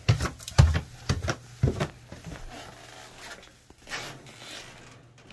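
Four footsteps on a hard floor about half a second apart, then soft rustling and rubbing.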